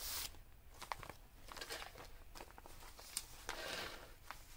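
A handmade paper junk journal being handled: soft paper rustles and scattered light taps and clicks as pages and tucked pieces are moved, with a brief rustle about three and a half seconds in.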